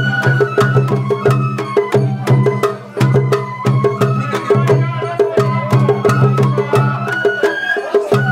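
Japanese festival hayashi music: a bamboo flute melody over taiko drums and rapid sharp metallic strikes in a brisk, steady rhythm, with a brief break about three seconds in.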